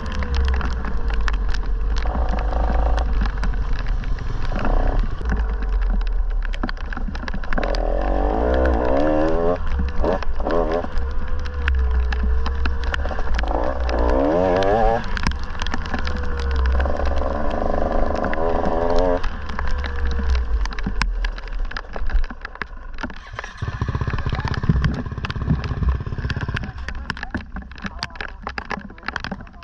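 Dirt bike engine revving up and down in repeated rising sweeps as it is ridden, over a heavy low rumble and frequent sharp clicks and knocks. The revving dies away about two-thirds of the way in.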